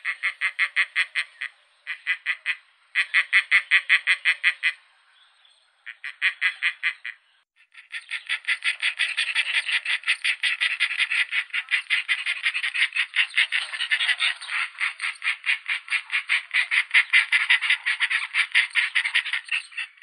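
Egyptian vulture calling: a rapid rattling series of pulses, about eight a second. It comes in four short bouts, then one long unbroken run from about eight seconds in.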